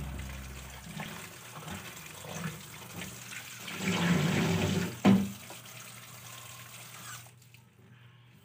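Water splashing in a bowl as pieces of raw tilapia are rinsed by hand, loudest around four to five seconds in. A sharp knock comes just after five seconds.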